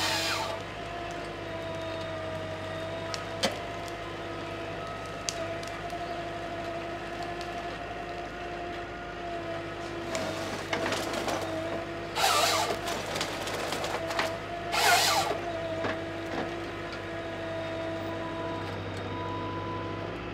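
Small forestry harvester's engine and hydraulics running steadily with a held whine, while its Log Max 928 harvester head works the trees. Several short, loud bursts of noise come at the start and again around the middle, from the head cutting and handling stems.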